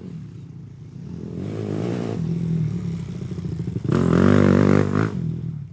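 Motorcycle engine running, growing louder about a second in, then revved hard about four seconds in, the loudest part, before settling back.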